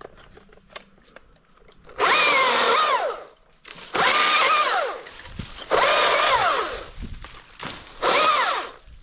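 Chainsaw revved in four short bursts of about a second each, the motor's pitch climbing and then dropping off as the trigger is released each time.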